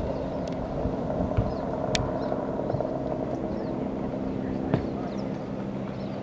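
Firefighting helicopter flying overhead, its rotor and engine a steady low drone, with two sharp clicks about two seconds and nearly five seconds in.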